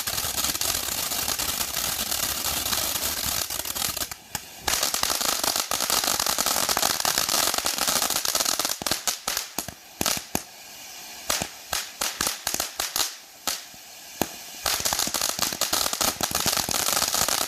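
World Class Fireworks Man of Honor 500-gram fountain spraying with a dense, loud crackle and hiss, broken by a brief lull about four seconds in. In the middle the crackle thins into separate sharp pops, then turns dense again before cutting off suddenly as the fountain burns out.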